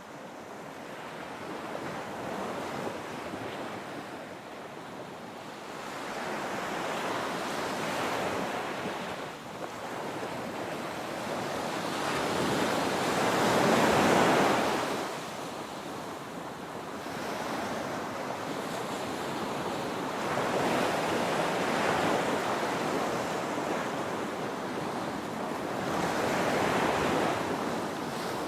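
Ocean waves breaking and washing up a beach: a continuous rush of surf that swells and fades every few seconds, with the loudest wave about halfway through.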